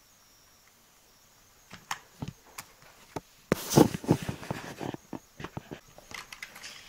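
Computer keyboard keys being pressed: scattered sharp clicks and taps beginning a little under two seconds in, with a louder cluster of strokes about halfway through.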